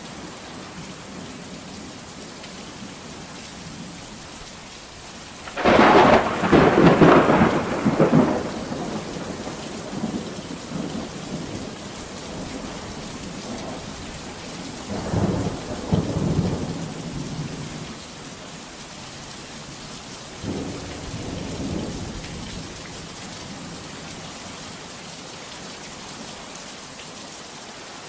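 Steady heavy rain with thunder. A loud crack and rumble comes about six seconds in and lasts a couple of seconds, a weaker roll of thunder follows about fifteen seconds in, and a fainter one about twenty seconds in.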